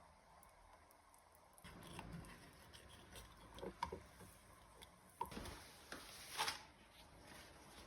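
Faint, scattered clicks and light taps of small objects being handled, with a sharper clack about six and a half seconds in.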